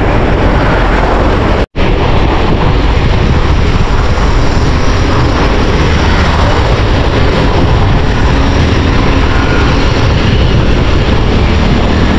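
Loud, steady wind rush on a handlebar-mounted action camera's microphone while riding a mountain bike on a paved road, mixed with road and traffic noise. The sound cuts out for an instant about two seconds in.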